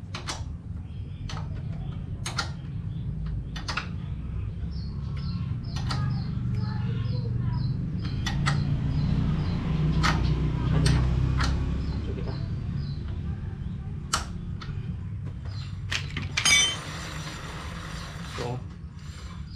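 Irregular sharp metal clicks and knocks of a hand wrench working the bolts of a Yamaha R25's brake caliper, over a steady low rumble that swells midway. A bird chirps in a quick run of short high notes from about five to thirteen seconds in, and a brief loud rasping noise comes near the end.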